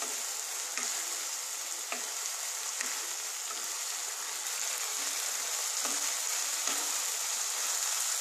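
Poppy-seed paste, onion and tomato sizzling in mustard oil in a nonstick pan while being stirred with a spatula, which scrapes and taps against the pan about once a second.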